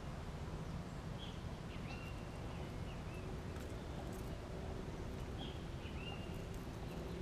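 Several short bird chirps over a steady low outdoor rumble, with a few faint clicks and a faint steady hum that comes in about halfway through.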